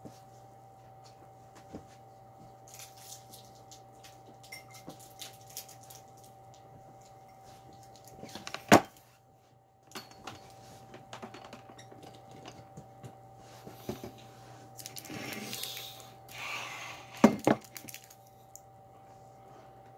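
Handling noises in a small room: scattered clicks, knocks and rustling as someone moves about and handles objects, with two sharp thumps, one about nine seconds in and one near the end. A steady low hum runs underneath.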